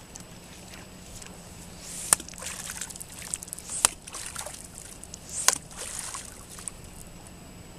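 A fishing lure slapped and swished hard against the lake surface to knock grass off it: three sharp slaps about a second and a half apart, with splashing and dripping water between them.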